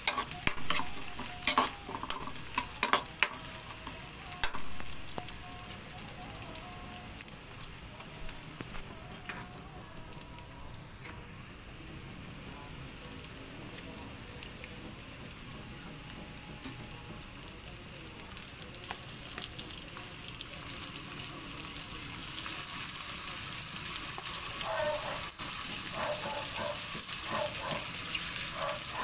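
Sliced garlic and onion sizzling in hot oil in a wok, with a spatula clicking and scraping against the pan in the first few seconds. About 22 seconds in the sizzle turns louder as raw chicken wings go into the hot oil.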